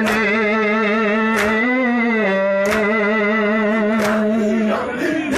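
A male nauha reciter holds one long sung note with a wavering pitch, and the mourners beat their chests in unison (matam): a sharp slap about every 1.3 seconds. The held note breaks off near the end.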